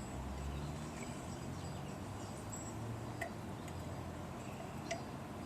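Two light metallic clicks about a second and a half apart, from a wrench snugging spark plugs into the engine, over a low steady background rumble.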